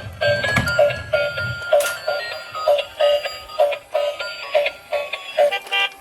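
Electronic music with a quick steady beat and a bright melody line; the bass drops out about a second and a half in.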